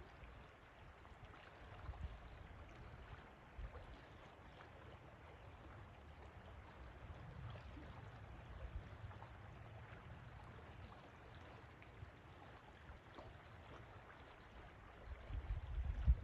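River water flowing steadily, with a faint rushing hiss. Underneath runs a gusty low rumble that grows louder near the end.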